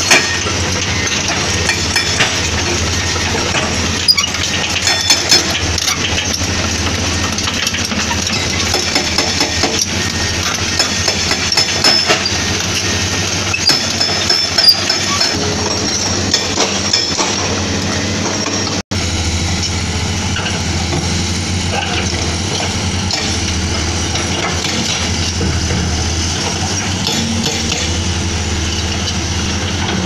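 Excavator-mounted hydraulic breaker pounding limestone over the steady run of heavy diesel excavator engines, with sharp clinks and cracks of rock. The sound cuts out for an instant about nineteen seconds in, then goes on the same.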